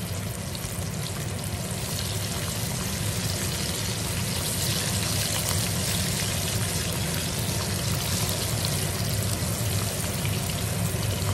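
Flour-coated chicken wings frying in hot oil in a pot: a steady sizzle, as more pieces are added to the oil.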